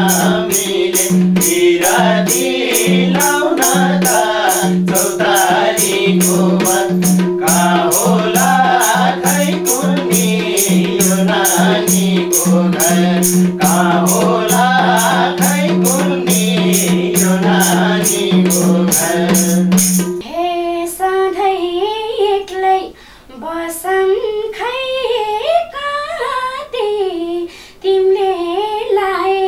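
Nepali lok dohori song: men singing to a steady madal drum beat and hand clapping over a held drone. About two-thirds of the way through the accompaniment stops and a woman's voice carries on singing alone.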